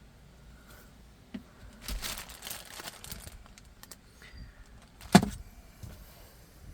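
Handling noises: a rustle lasting about a second and a half, a few small clicks, and one sharp click or knock about five seconds in.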